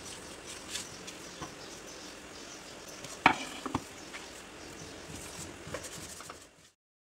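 Hands handling risen yeast dough in a plastic bowl: soft scraping and rustling with small clicks, and two knocks a little past three seconds in as the bowl is tipped over a wooden board and the dough turned out. The sound cuts off abruptly near the end.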